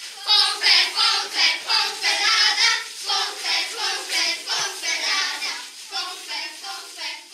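A group of children singing together in a quick, even rhythm of about four syllables a second, growing fainter toward the end.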